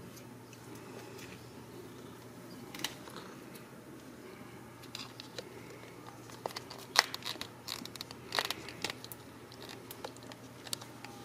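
Ragdoll kittens scuffling at play: scattered rustles and light clicks of paws and claws scrabbling on plastic and rubber mats, thickening in the second half, over a faint steady hum.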